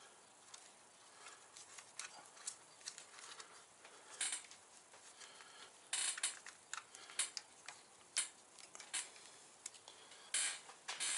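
Scattered light clicks, taps and rubbing of hands pressing wiring back into its clips on a Ducati Hyperstrada's engine, around the front sprocket cover. A few short scratchy rustles stand out, about four, six and ten seconds in.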